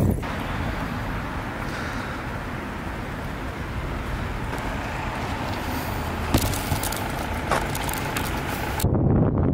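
Steady outdoor rushing noise with a couple of light clicks, changing near the end to a low wind rumble on the microphone.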